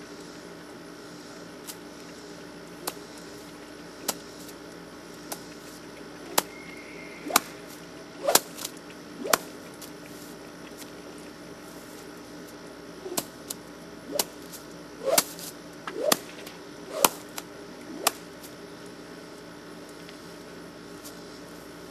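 A handler's tongue clucks to a horse: sharp clicks roughly once a second, in two runs with a pause of a few seconds between them, to ask the horse to move.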